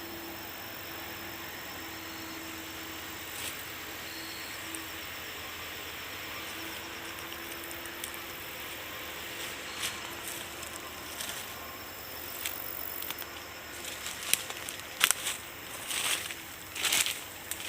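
Heavy earthmoving machine running steadily. In the last few seconds there are many sharp cracks and crunches, like rock and soil breaking up.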